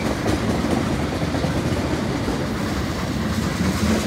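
Freight train of tank cars rolling past: steel wheels running on the rails with a steady, low rumble.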